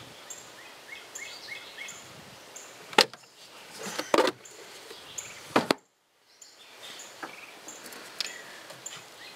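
Outboard motor's engine cover being unlatched and lifted off: a sharp click about three seconds in, then clunks and rattles of the cover a second and two and a half seconds later.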